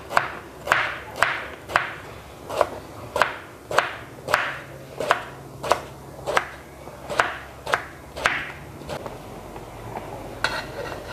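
Cleaver slicing through peeled luffa gourd onto a wooden cutting board: a steady run of sharp chops, about two a second, that stops about eight seconds in.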